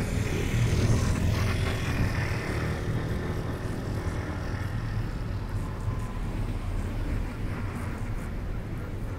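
Low, steady drone of a passing tanker's engine, with a hiss over it that thins out after two or three seconds.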